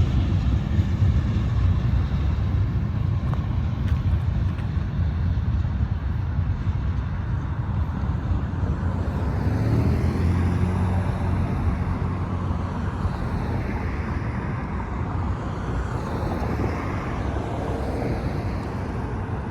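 Freight train rolling past a road crossing: a steady low rumble of cars on the rails, with an engine hum rising a little about halfway through.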